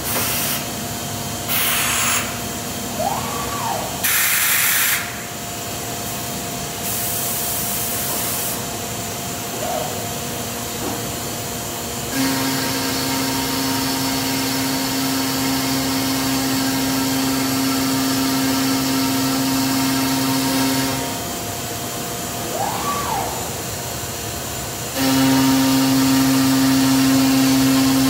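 Busellato Jet C21 CNC router running a machining cycle over a steady hum. In the first few seconds there are three short hisses. Later a motor whine holds steady for about nine seconds, and it starts again louder near the end.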